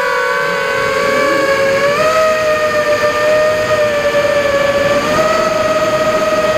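Motors and propellers of a Martian II FPV quadcopter whining steadily in flight, heard through its onboard camera. The pitch steps up about two seconds in and again about five seconds in.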